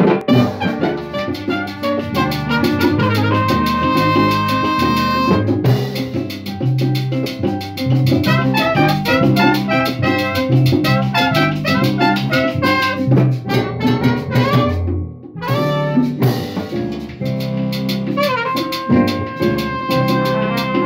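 Live salsa band playing an instrumental passage: trumpets over timbales, congas and keyboard. The band stops for a moment about fifteen seconds in, then comes back in.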